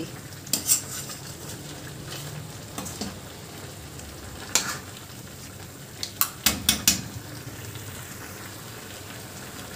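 Chicken karahi sizzling steadily over high heat in a karahi, with a metal spoon stirring and clinking against the pan a few times: once about half a second in, again halfway through, and several quick knocks around six to seven seconds in.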